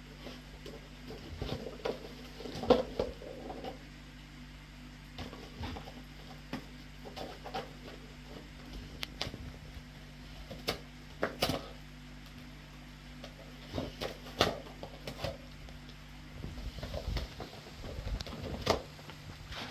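Akita dog searching for a treat: irregular soft clicks, knocks and patter as it noses and paws around, with a few louder knocks and a run of low thumps near the end.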